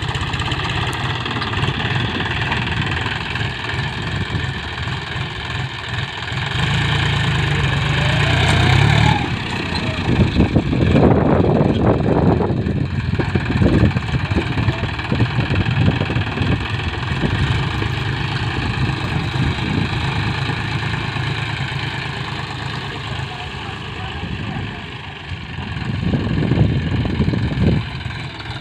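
Engine of a ploughing machine running steadily. It grows louder for a couple of seconds about seven seconds in, then surges unevenly around the middle and again near the end.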